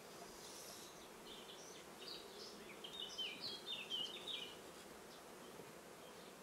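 Honeybees humming faintly from an open top-bar hive, with a run of short, high bird chirps in the middle.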